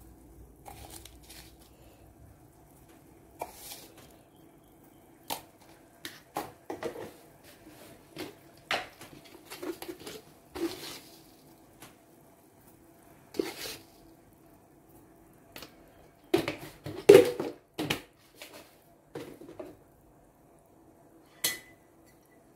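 Spoon knocking and tapping against a stainless steel soup pot as seasoning is spooned in: a scattered series of sharp clicks and knocks, with one short metallic ring near the end.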